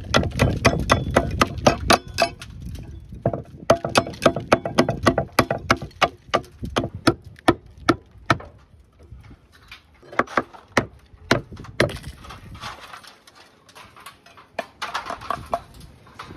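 Slater's hammer chopping the edge of a thick roofing slate held over a steel stake: a fast run of sharp cracks and knocks, about three or four a second, breaking into shorter groups with brief pauses in the second half.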